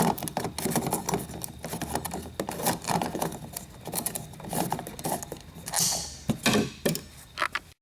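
Rapid irregular clicks, taps and rustles of things being handled.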